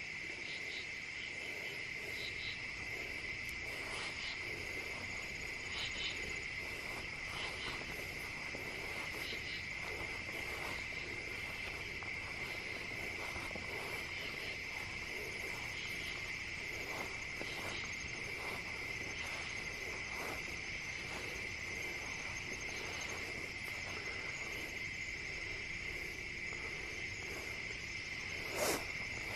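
Steady, unbroken high chirring of a night insect chorus, with faint rustles of footsteps in grass and one sharp knock near the end.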